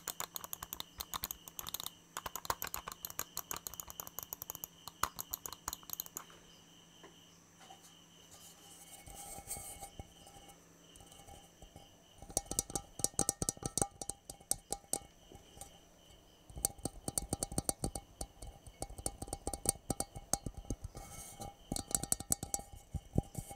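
Very fast, aggressive tapping in rapid dense clusters that eases off for several seconds around the middle. It comes back heavier and deeper after about twelve seconds, now with a ringing tone from the tapped object.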